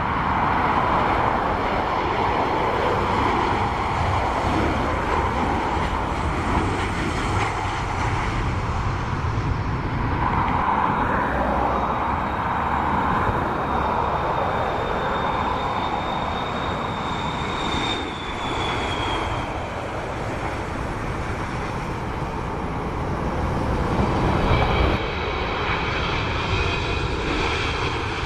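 Jet airliners on final approach, several in succession, their engines running steadily. Partway through, a high whine sounds over the engine noise and drops in pitch, and the engine sound changes character about 25 seconds in.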